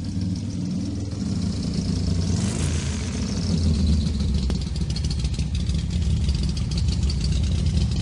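Vehicle engine and road noise heard from inside the moving vehicle's cabin: a steady low rumble, with a higher hiss joining about two and a half seconds in.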